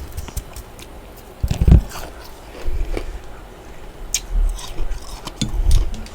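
Freezer frost being bitten and chewed close to the microphone: scattered sharp crunches, with two heavier low crunches about a second and a half in and again near the end.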